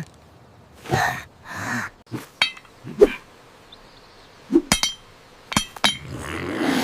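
Cartoon sound effects: a few short ringing metallic clinks and sharp clicks scattered among brief animal-like grunts and puffs of noise.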